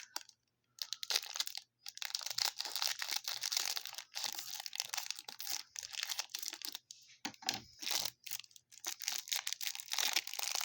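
Cellophane wrapper and cardboard of a trading-card hanger box being torn open and crinkled by hand, an irregular crackling with a short pause partway through.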